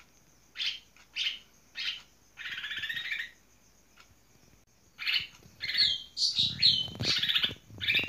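Cucak ijo (greater green leafbird) singing: three short sharp calls about half a second apart, then a longer buzzy trill. After a pause of about a second and a half comes a fast run of varied whistles with sliding, falling notes.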